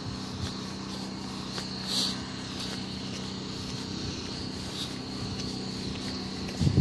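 Footsteps on an asphalt sidewalk over a steady low hum, with a brief louder noise about two seconds in and a low thump near the end.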